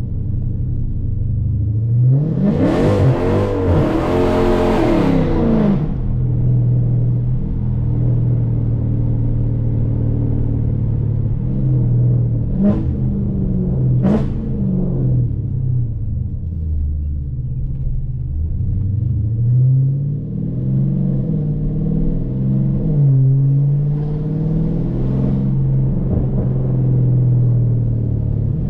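2020 Dodge Challenger Scat Pack's 6.4-litre HEMI V8 accelerating hard about two seconds in, its pitch climbing and dropping for a few seconds, then running steadily. Two short sharp cracks come around the middle, and the revs rise and fall again near the end.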